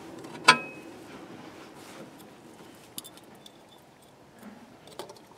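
A sharp metallic clink with a brief ring about half a second in, then a few faint clicks: small metal parts being handled.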